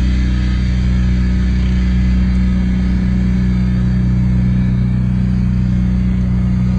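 Steady drone of a pickup truck's engine and road noise heard from inside the cab while cruising at highway speed.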